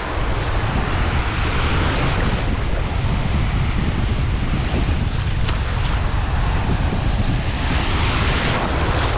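Choppy sea washing and breaking in the shallows, with a steady wind rumble on the microphone. A wave foams up right by the microphone near the end.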